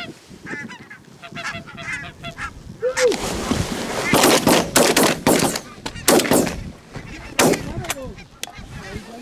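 A flock of barnacle geese calling with many short yapping honks, growing louder as they come in. From about four seconds in, a rapid volley of several shotgun shots, with one more shot a second or so later, while the geese keep calling.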